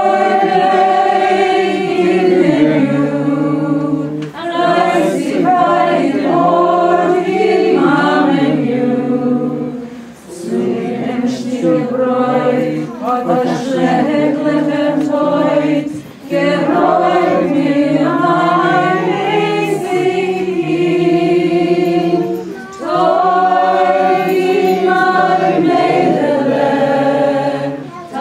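A small group of voices singing a cappella, without instruments, in phrases of about six seconds broken by short pauses for breath.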